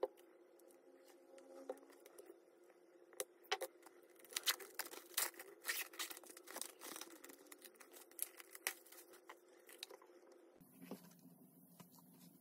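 Clear plastic shrink wrap being torn and peeled off a vinyl LP jacket by hand: a run of crinkling crackles and rustles, thickest in the middle and thinning out about ten seconds in.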